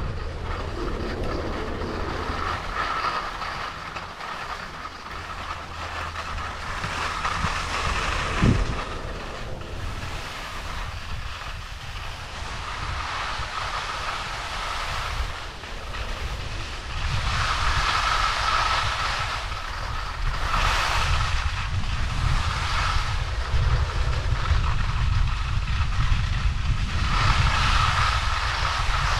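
Chairlift machinery running with a steady low rumble and clatter, a hiss that swells and fades several times, and one sharp knock about eight seconds in. Wind noise on the microphone.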